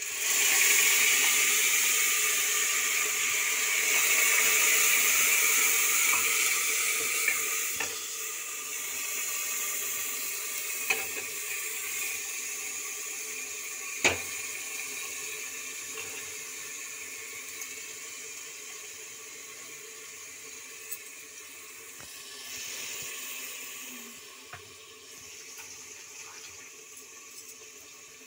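Garlic-onion paste sizzling in hot oil in an aluminium pressure cooker: the frying hiss starts abruptly as the paste goes in and slowly dies down as it fries. A ladle clicks against the pot a few times while stirring.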